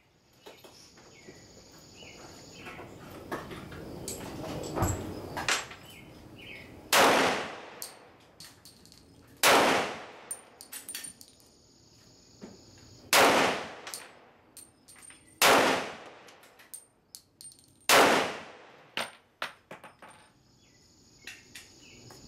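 Five pistol shots from a Sig Sauer P226 chambered in .357 SIG, spaced two to four seconds apart, each trailing off in echo. Fainter cracks and clicks come between them.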